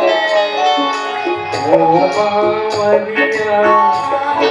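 Live music from a folk-theatre stage band with harmonium, keyboard and drums: a melody of held notes over a steady drum beat.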